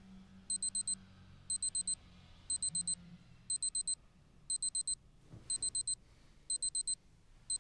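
Electronic alarm beeping: short bursts of about five quick high-pitched beeps, repeating once a second. A soft rustle of bedding comes about five seconds in as the sleeper stirs.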